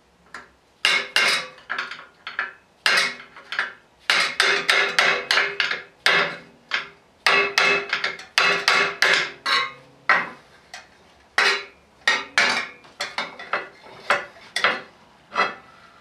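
A hammer striking metal in repeated quick runs of blows with short pauses between them, each blow followed by a brief metallic ring.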